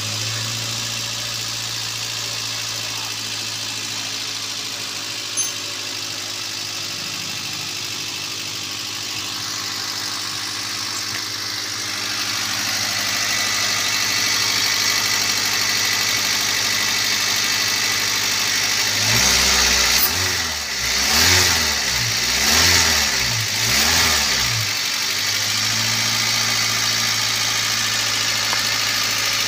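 Toyota Avanza four-cylinder petrol engine idling steadily with a new spark plug and ignition coil fitted, which the mechanic takes as the misfire being cured. Between about 19 and 25 seconds in, the throttle is blipped four times, the revs rising and falling back to idle each time.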